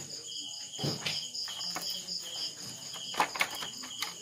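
Crickets chirping steadily in a quick pulsing rhythm of about three chirps a second, with a few light clicks and knocks about a second in and near the end.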